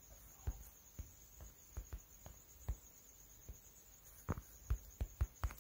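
Typing a password on a smartphone's on-screen keyboard: a faint, irregular run of short taps, coming quicker near the end.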